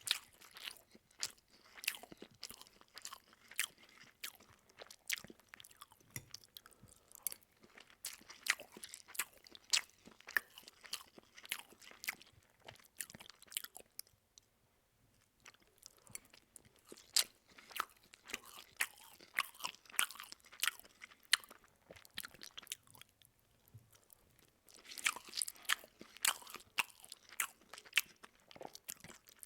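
A person chewing food with the mouth open: a dense, irregular run of sharp wet mouth clicks and smacks. It thins out about halfway through and again about two-thirds of the way in, then picks up again.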